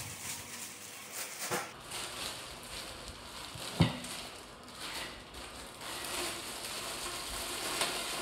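Clear plastic wrapping crinkling and rustling as it is pulled off a scooter deck, with one sharp knock about four seconds in.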